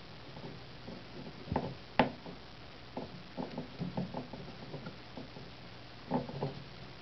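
Small plastic clicks and knocks of RCA cable plugs being handled and pushed into their jacks, scattered and irregular, the sharpest about two seconds in.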